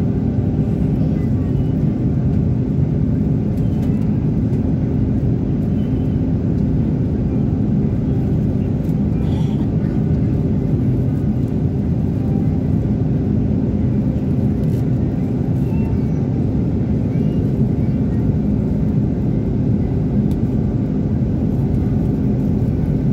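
Airbus A330 jet engines and airflow: a steady low drone with a constant hum, holding the same level throughout.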